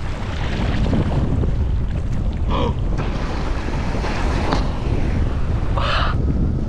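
Wind buffeting hard on the microphone, with water rushing under a windfoil board moving over the sea. Two short, higher-pitched sounds stand out, about two and a half seconds in and again near six seconds.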